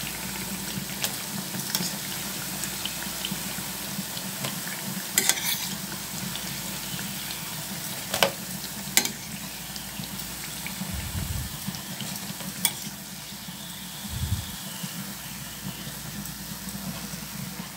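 Hot oil sizzling steadily in a steel frying pan as fried sweet tikkiyan are lifted out with a metal spoon, which clicks sharply against the pan a few times. Two short low thumps come in the second half.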